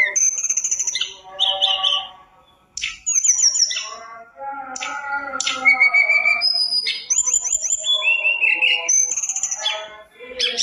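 Hill blue flycatcher (tledekan gunung) singing a long, varied song of rising and falling whistles, fast trills and lower warbled phrases, broken by one short pause about two and a half seconds in.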